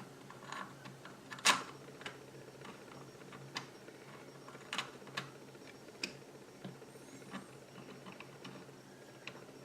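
Scattered light clicks and taps of 3D-printed plastic transmission-model parts being handled as the shift rods are twisted into their holes, the loudest click about a second and a half in.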